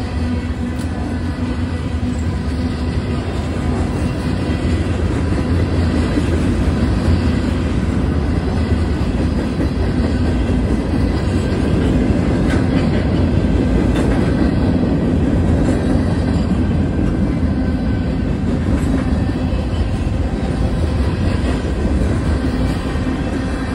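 Freight train's cars rolling past: a steady rumble of steel wheels on the rails with clatter over the rail joints.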